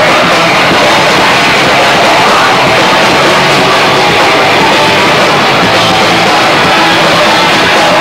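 Live punk rock band playing loud and dense with electric guitars, with no breaks.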